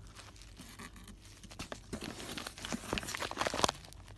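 Bubble wrap crinkling and crackling as it is handled and pulled open. The crackles come thick and fast, grow louder about two seconds in, and stop abruptly near the end.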